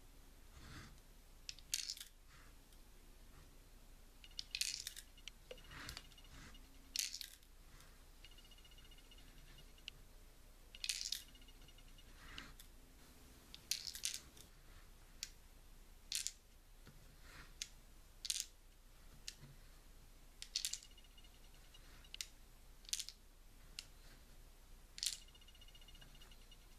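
Steel BBs dropped one at a time into the Umarex Legends MP 40 replica's stick magazine, each landing as a sharp metallic click, some with a short ring, about one every two seconds.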